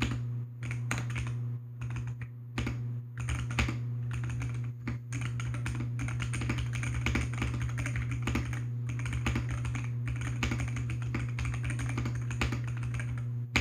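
AKKO PC75B Plus mechanical keyboard with lubed Akko Jelly White linear switches being typed on in a quick, continuous run of keystrokes, with a few brief pauses in the first few seconds. A steady low hum runs underneath.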